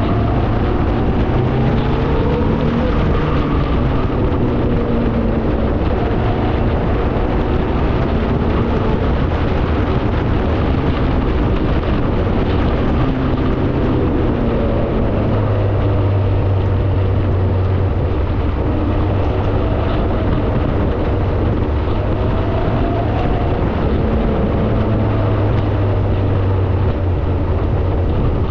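Car engine and road noise heard while driving, the engine note rising and falling several times as the speed changes.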